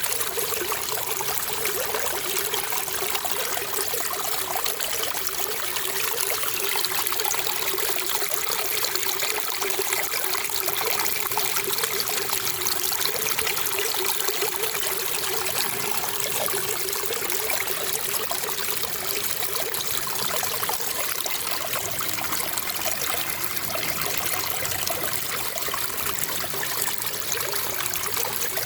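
Running water trickling steadily, an even rushing sound that does not let up.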